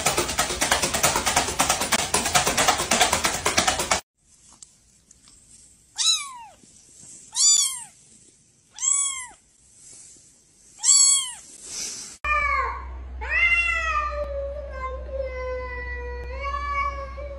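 About four seconds of busy background music, then a kitten meowing four times, short high calls about a second and a half apart. After a cut a cat yowls in long drawn-out calls, the last one held for about four seconds and slowly falling in pitch, during a standoff with other cats.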